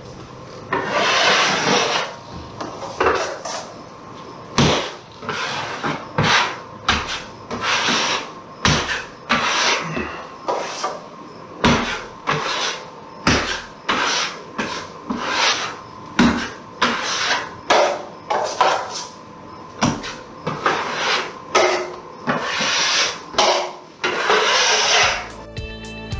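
Steel drywall knife scraping quick-set hot mud (joint compound) onto drywall seams in repeated short strokes, about one or two a second, with a few longer smears, filling the gaps before the tape coat. Guitar music comes in near the end.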